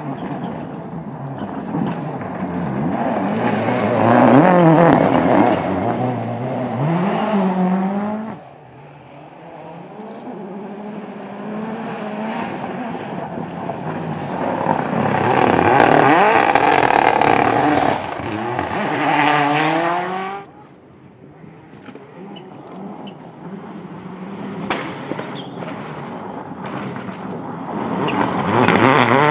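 Rally cars, among them a Mini John Cooper Works WRC, racing past one after another on a gravel stage. Their engines rev hard, with the pitch climbing and dropping at each gear change, and each car swells to its loudest as it passes. The sound breaks off abruptly twice, about eight and twenty seconds in, and a new car builds near the end.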